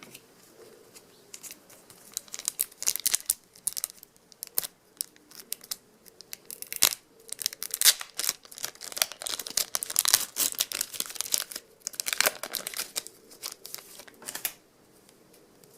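A trading card pack's wrapper being torn open and crinkled: a long run of irregular crackling rips and crumples.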